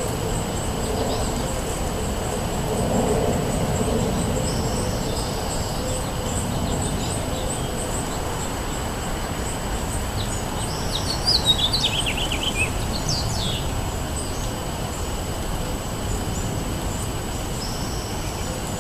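Steady wind rumble with scattered songbird calls. Near the middle, a bird sings a quick run of notes that fall in pitch.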